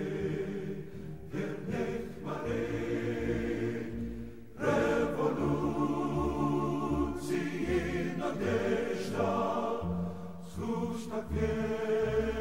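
Background music with a choir singing held chords; it swells louder about four and a half seconds in.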